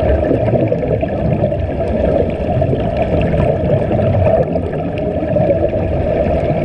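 Steady, muffled underwater rumble and bubbling, recorded with the camera under water, as air streams out of the surface-fed sea-walking diving helmets.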